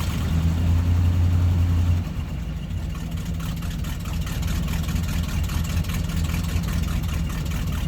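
1970 Plymouth Superbird's V8 engine running, louder for about the first two seconds and then settling back to a steady idle.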